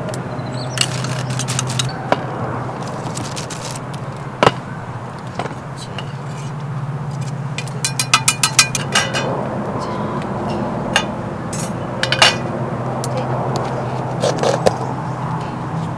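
Gloved hands handling small objects on a wooden table: scattered clinks, taps and scrapes, with a quick run of about eight clicks a little past the middle. A steady low hum runs underneath.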